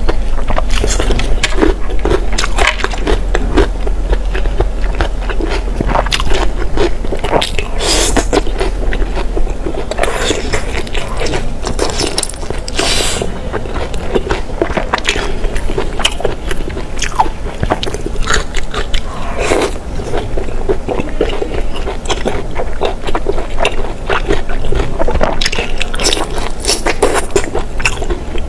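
Close-miked eating: a person biting and chewing chewy braised food, with a dense, irregular run of wet smacks and sharp clicks from the mouth.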